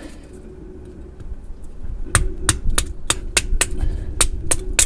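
Kindling being chopped: a quick run of about ten sharp chops, three to four a second, starting about two seconds in.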